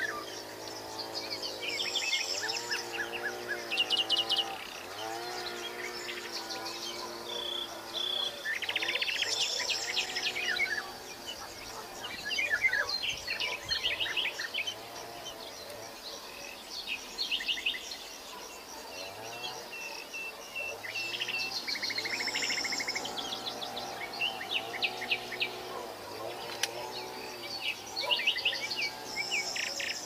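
A chorus of songbirds chirping and trilling: many short, quick phrases and rapid note series that overlap throughout. Underneath runs a low, slowly wavering drone.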